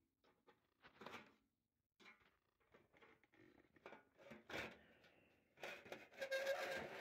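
Handling noise on a stereo receiver's sheet-metal case: scattered light clicks, rubs and scrapes. It is loudest near the end, where a scrape with a brief metallic ring comes as the top cover is lifted off.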